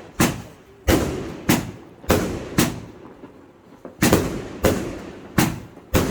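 Fireworks going off: a run of about nine sharp bangs at uneven intervals, each with a short fading tail.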